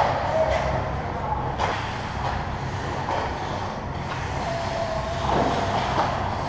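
Ice hockey play on the rink: skates scraping and carving the ice, with occasional sharp stick or puck knocks over a steady low hum of the arena.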